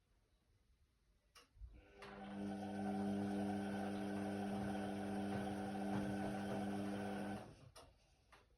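Indesit WIDL 106 washer-dryer's motor starting with a click, running with a steady hum for about five seconds, then stopping, followed by two more clicks.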